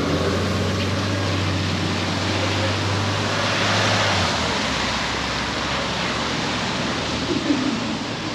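Wet-street traffic in the rain: a steady hiss of tyres on wet asphalt that swells as a vehicle passes about four seconds in, over a low engine hum that drops away soon after. A short knock sounds near the end.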